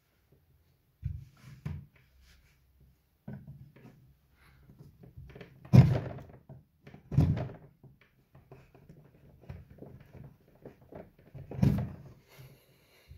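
Hand chisel cutting into a carved wooden dish: a run of irregular short scraping cuts and dull wooden knocks, three of them louder and deeper, two near the middle and one near the end.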